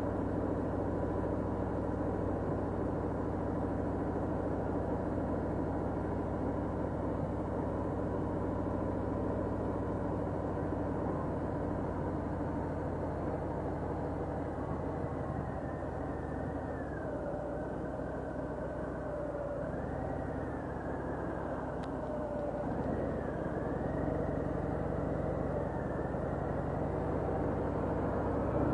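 Cruiser motorcycle engine running at low road speed, a steady low rumble. Its note eases off in the middle and picks up again toward the end.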